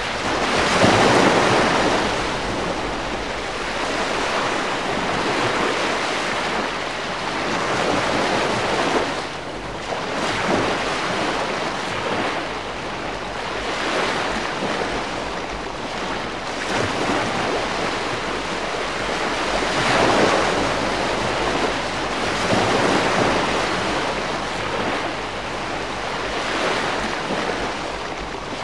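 Calm sea washing in small waves, a steady hiss of water that swells and falls back every few seconds.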